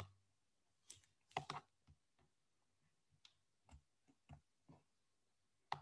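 Faint, scattered clicks from a computer mouse and keyboard, about eight in all and irregularly spaced, with the loudest cluster about one and a half seconds in.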